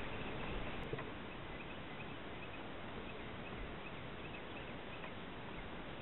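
Steady hiss of wind and water on open water, with faint, short high chirps scattered throughout.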